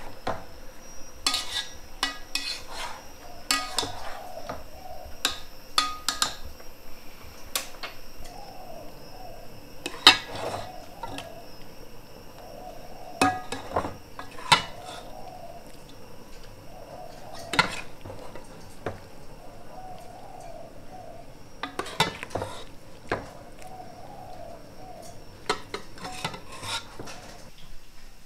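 A metal spoon clinks and scrapes against a metal cooking pot as stir-fried food is stirred and scooped out, with irregular sharp clanks.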